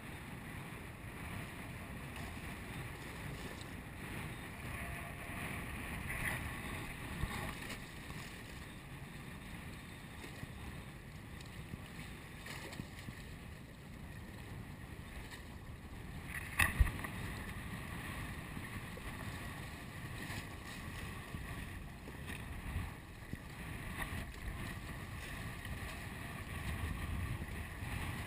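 Wind buffeting the microphone and water rushing and splashing past the hull of an F18 racing catamaran under sail, a steady rushing noise. A sharp knock stands out about two-thirds of the way through, with a few smaller knocks elsewhere.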